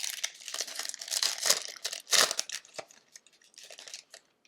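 A hockey card pack wrapper crinkling and tearing as it is opened and crumpled by hand, in irregular crackly bursts, loudest about two seconds in, fading after about three seconds.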